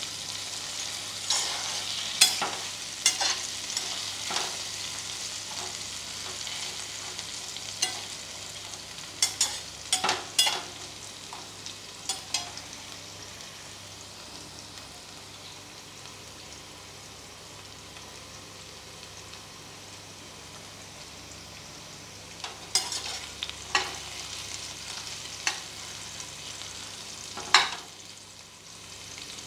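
Cubed potatoes sizzling steadily as they fry in oil in a steel pot, with a spatula scraping and knocking against the pot in spells of stirring during the first half and again near the end, and a stretch of plain sizzling in between.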